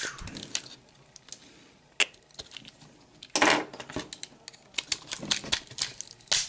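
Sharp, irregular clicks and clatter of small plastic and metal camera parts being worked with a small screwdriver, with one louder, longer clatter about three and a half seconds in.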